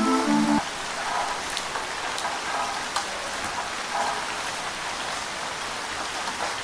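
Steady rain falling, with scattered individual drops striking. A held musical note from the loop cuts off about half a second in.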